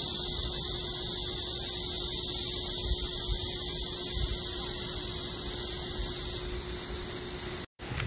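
Pond fountain jets spraying and splashing onto the water: a steady hiss with a faint steady hum underneath, cutting off abruptly near the end.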